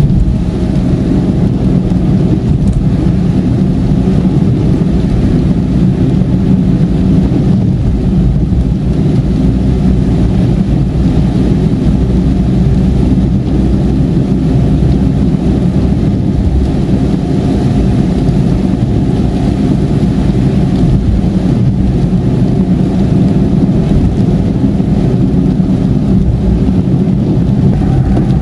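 Car driving at highway speed: a steady low rumble of engine and tyre noise.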